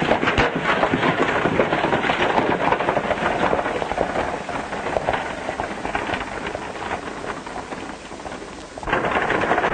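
Horses' hooves and a wagon running together in a dense, rattling clatter as the team sets off. It dips briefly near the end, then picks up again.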